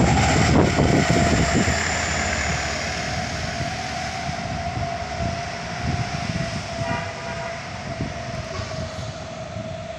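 Heavy vehicle (truck or bus) passing on a steep bend, its engine and drivetrain giving a steady droning whine that fades as it moves away.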